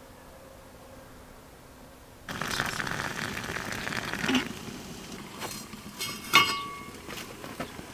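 After a quiet start, a fire burning in a samovar's fire chamber sets in about two seconds in, followed by a few sharp metal clinks, the loudest with a short ring about six seconds in.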